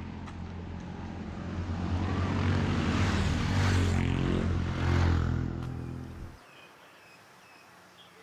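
A motor vehicle's engine running and growing louder for a few seconds, then cutting off abruptly about six seconds in.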